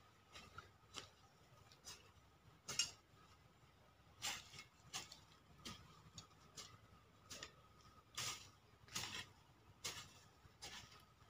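Faint, irregular scrapes and knocks of a hand tool working dry soil while weeding, roughly one every second, a few of them longer scrapes. A faint steady high tone runs underneath.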